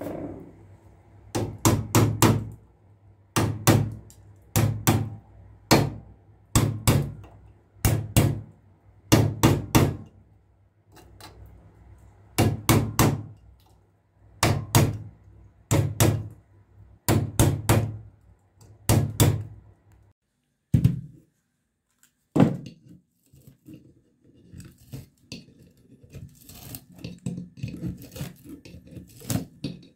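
Hammer blows on a steel punch driven into the stator slots of a burned 1 HP electric water pump motor, knocking out the old windings: sharp metallic strikes, singly or in quick twos and threes, about once a second. The blows stop after about twenty seconds, and near the end a softer crackling follows as the burned copper windings are pulled out by hand.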